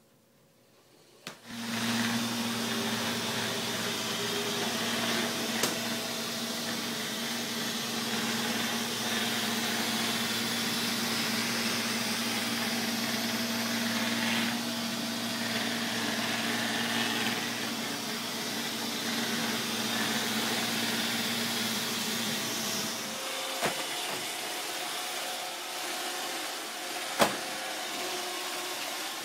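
Robot vacuum cleaner starting with a click about a second in, then running with a steady motor hum under a loud whooshing suction noise. Near the end the low hum stops while the whooshing goes on, and there are two sharp knocks.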